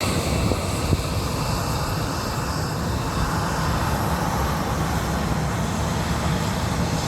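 Airplane engines at takeoff power: a loud, steady rumble with a faint high whine over it. A short knock sounds about a second in.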